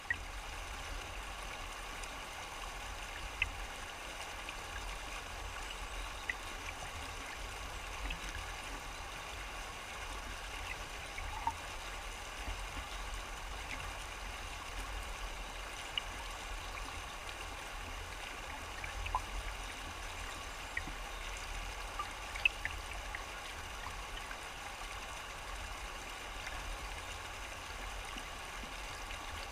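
A shallow river rushing over rocks: a steady wash of running water, with scattered small splashes and plops.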